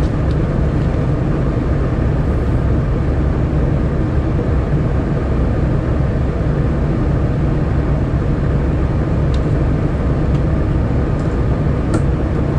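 Diesel freight locomotive idling, a loud steady low rumble heard from on top of the locomotive's hood.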